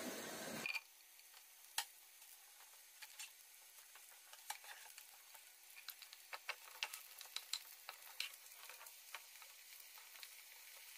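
Chopped onion, green chilli and mushrooms sizzling faintly in hot oil in a nonstick wok, with light scrapes of a wooden spatula pushing them in off a wooden chopping board. The crackle grows busier in the second half.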